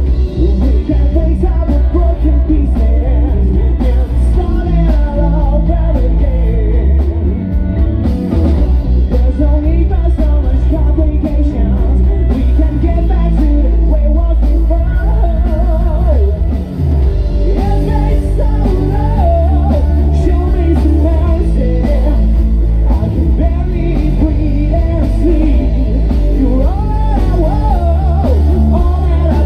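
A rock band playing live: a male lead singer over electric guitar, bass guitar, keyboard and drums, in a glam rock style.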